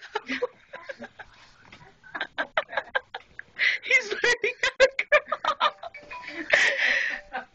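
People laughing in quick, rhythmic bursts of high-pitched laughter, with a short spoken or laughing stretch near the end.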